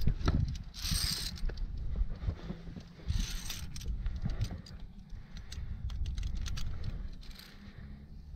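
Via ferrata climbing gear clinking and scraping as a climber moves along the route, with sharp scrapes about a second in and again about three seconds in, scattered small metallic clicks, and a constant low rumble.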